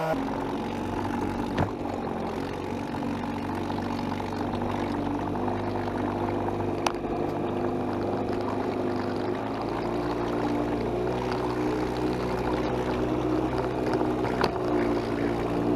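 Small Evinrude 3-horsepower two-stroke outboard motor running steadily under way, pushing a small dinghy, its note shifting slightly about ten seconds in. A few light knocks stand out over it.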